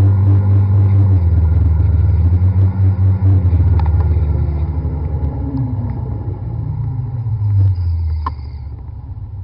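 Motor scooter engine running with a low steady hum, its pitch shifting up and down and easing off over the last couple of seconds as it slows.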